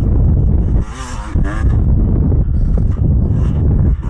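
Beta dirt bike engine running under a rider, its revs rising and falling about a second in, under heavy wind rumble on the microphone.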